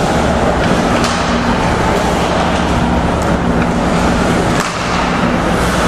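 Ice hockey rink ambience during play: a steady low hum and rumble through the arena, with a few sharp clacks of sticks and puck on the ice.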